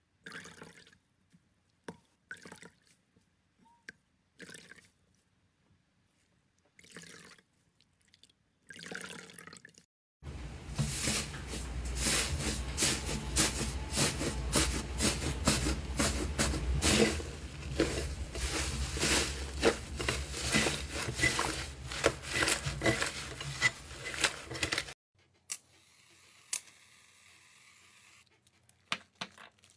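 Slime played with by hand: a few short, soft squishes in the first ten seconds, then about fifteen seconds of dense, loud wet crackling and squelching as a fluffy water-soaked 'snow' slime is kneaded. Near the end comes the steady hiss of an aerosol can spraying foam onto slime.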